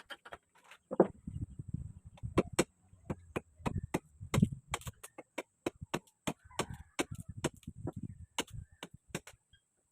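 Irregular run of sharp chops and knocks, two or three a second, of a tool striking wood as a bolo's wooden handle is worked.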